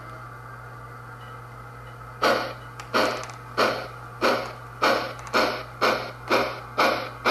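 Soundtraxx heavy steam locomotive sound decoder in a model steam locomotive, over a low steady hum. About two seconds in, the exhaust chuffs begin as the locomotive starts off, slow at first and then quickening.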